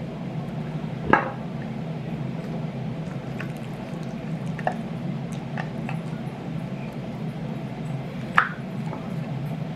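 Plastic seasoning shakers being handled, with two sharp clicks about seven seconds apart and a few lighter ticks between them, as the caps are worked open. A steady low hum runs underneath.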